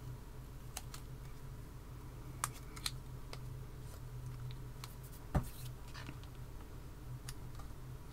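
Small craft scissors snipping a paper cutout: light, irregular snips and clicks, the loudest about five seconds in, over a steady low hum.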